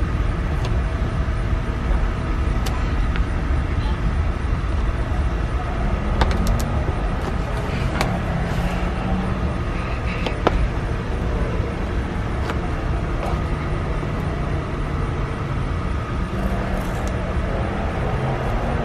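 A few sharp clicks and taps of plastic Hot Wheels track pieces being handled, over a steady low rumble.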